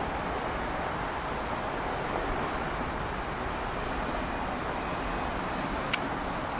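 Steady rushing noise of jet engines at an airport, mixed with wind on the microphone, with one sharp click about six seconds in.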